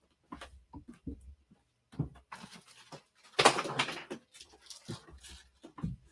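Off-camera rummaging: scattered knocks and clicks of things being moved, with a louder clatter of stuff falling about three and a half seconds in.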